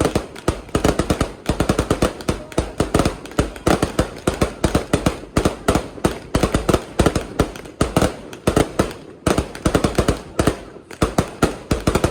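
Fireworks going off in a rapid, continuous string of bangs and crackles, several a second, with brief lulls.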